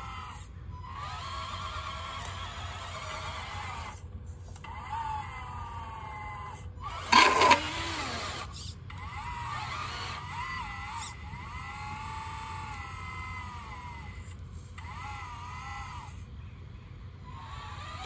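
Electric motors of a 1:14-scale RC Caterpillar 988 wheel loader whining as it is driven, the pitch rising and falling and cutting out between short runs. There is one loud, brief clatter about seven seconds in.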